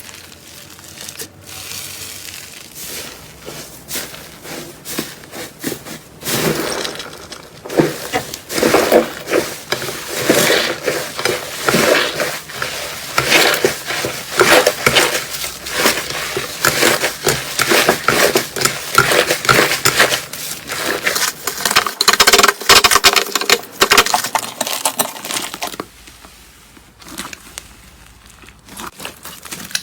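Slime being worked, giving a dense run of crackling clicks and pops. The clicks build up a few seconds in, are heaviest through the middle and thin out near the end.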